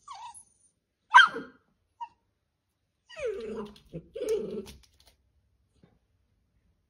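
Dachshund giving one sharp bark about a second in, then low growling grumbles from about three to five seconds.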